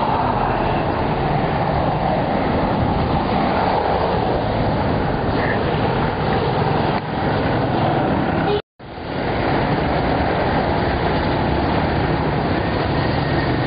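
Steady street traffic noise, a dense rumble with hiss above it. It cuts out for a moment a little past the middle and fades back in.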